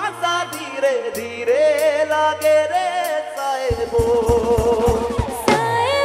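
Live band music: a melodic lead with wavering pitch over a held low note, then drums and bass come in with a steady beat about three and a half seconds in.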